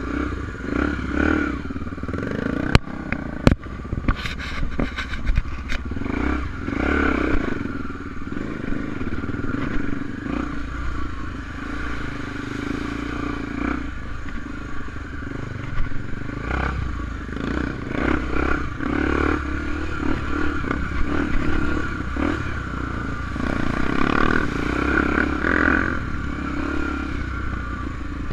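Enduro motorcycle engine running, with a cluster of sharp knocks about three seconds in.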